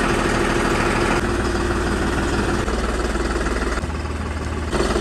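Tractor diesel engine running steadily, heard across several short clips joined together, so its tone and loudness change abruptly about every second.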